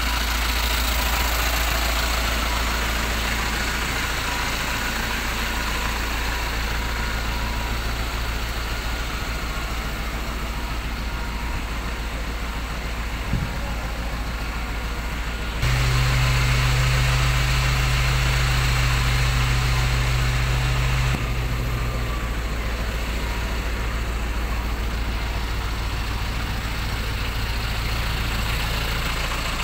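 Truck engine idling steadily. A louder, deeper hum sets in abruptly about halfway through and drops away again about five seconds later, and there is a single brief click shortly before it.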